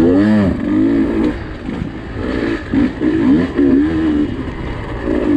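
Husqvarna TE150i TPI dirt bike's 150cc fuel-injected two-stroke engine being ridden through technical terrain, its pitch rising and falling in quick throttle blips, then holding a steadier note near the end.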